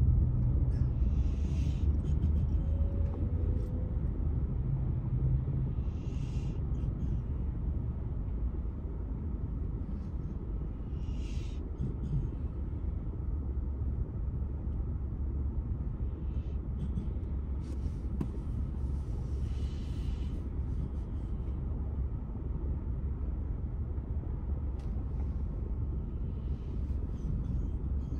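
Low, steady rumble inside a car's cabin as it slows and then waits at a traffic light. Several times, faint whooshes of other cars pass.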